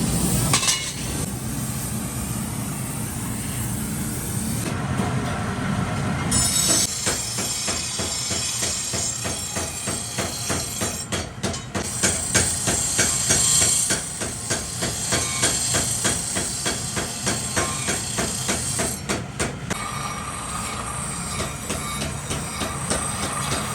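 Hammer blows on hot steel as a leaf spring is forged into a cleaver blade, struck in a fast, even rhythm that starts about six seconds in, over a steady low machine noise.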